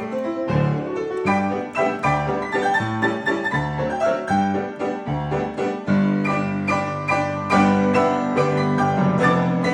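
Piano music: quick notes over a steady bass that changes about every half second, with the low notes held longer from about six seconds in.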